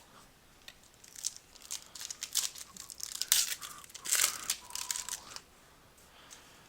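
Foil trading-card pack wrapper being torn open and crinkled, a run of crackly rips and rustles from about a second in until about five and a half seconds.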